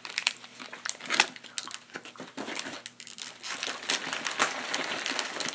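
A small candy wrapper crinkling in the hands as it is unwrapped, an irregular run of crackles with a sharper one about a second in.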